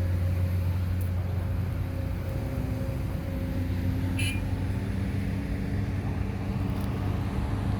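Engine running steadily with a low, even hum, with a short high ping about four seconds in.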